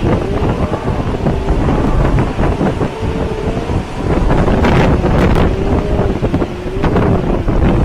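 Hurricane wind gusting hard against the microphone as a heavy, steady rumble. A faint wavering whistle rides over it, with a few short gust hits and rattles about halfway through and near the end.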